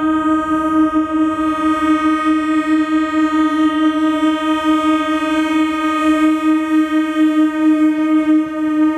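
Indian Railways EMU local train's horn sounding one long, steady blast at a single pitch as the train approaches, wavering a little in loudness near the end.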